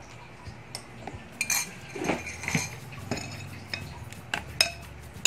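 Metal spoon clinking and scraping against a glass bowl while pieces of fish fillet are stirred in wet flour batter: irregular strokes, with sharper clinks about a second and a half in and near the end.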